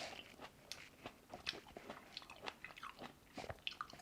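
Close-miked mouth sounds of someone chewing a Shine Muscat grape: soft, wet, irregular smacks and clicks.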